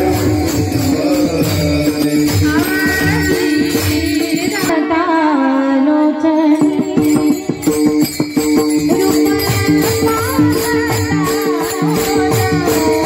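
Marathi devotional bhajan: a woman singing over a steady harmonium drone, with small brass taal hand cymbals clashed in a fast even rhythm and a pakhawaj drum. About five seconds in the cymbals and drum drop out for a couple of seconds while she sings a sliding phrase alone, then they come back in.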